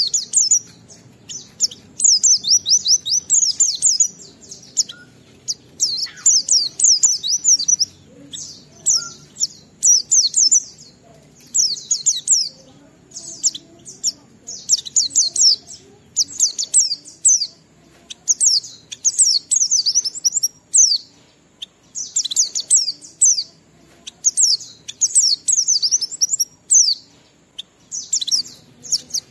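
A pleci (white-eye) singing in the fast, high-pitched ngalas style: rapid chattering chirp phrases of one to two seconds each, repeated with short pauses between them.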